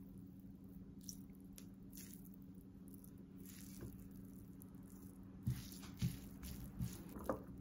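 Chopsticks and a nylon turner lifting and tossing cooled stir-fried somen noodles in a non-stick pan: soft, faint squishing of the noodles, with a few short knocks of the utensils against the pan in the second half.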